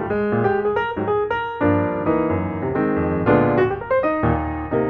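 Background piano music: a quick run of notes over sustained chords.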